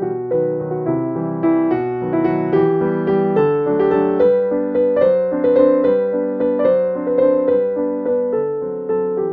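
Background piano music: a steady run of notes, each struck and dying away.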